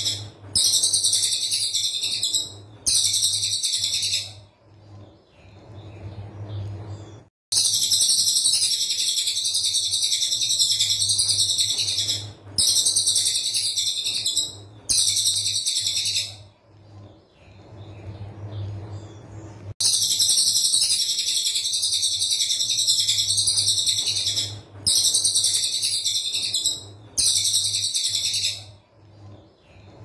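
Cililin coklat (brown cililin) singing a 'tembakan' song: long, dense, very high, rapid-fire trills of one to four seconds each. About eight of them follow one another with short pauses, the longest running about four and a half seconds near the middle.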